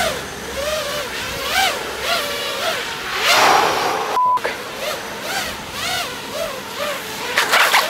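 FPV quadcopter dropping into canal water with a splash about three seconds in. A short rising-and-falling tone repeats roughly twice a second throughout, and there is a brief steady beep about a second after the splash.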